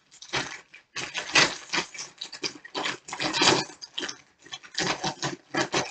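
Close-up eating noises: irregular crunching and chewing of food, with food being handled at the table.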